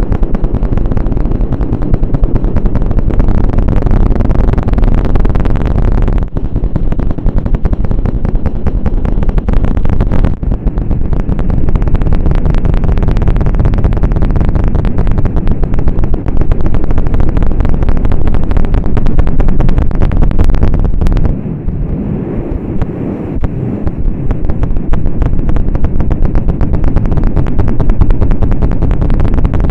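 Ear-cleaning tools scraped and rubbed fast right against the microphone, making a loud, dense, rapid scratching with short breaks about six, ten and twenty-one seconds in.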